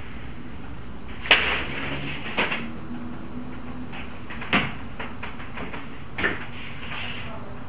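Four sharp knocks or clacks a second or two apart, the first the loudest and followed by a brief rustle.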